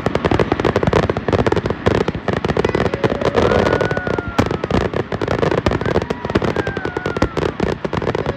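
Fireworks barrage: a dense, rapid run of bangs and crackles without a break, with a few high whistles gliding downward.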